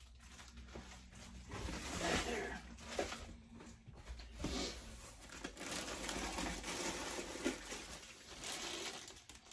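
Plastic packaging rustling and crinkling in irregular bursts as items are handled and dug out of a shipping box, with a few light knocks.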